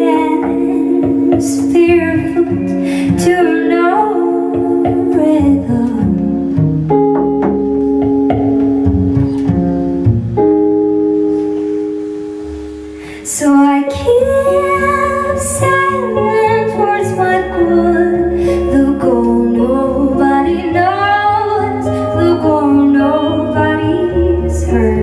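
Live trio music: a woman singing over hollow-body electric guitar and upright double bass. About six seconds in the voice stops and held notes fade down, then singing and band come back in suddenly about halfway through.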